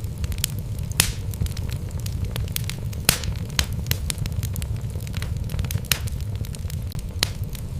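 Wood logs burning in a fireplace, crackling and popping at irregular intervals over a steady low rumble of the flames; the sharpest pops come about one and three seconds in.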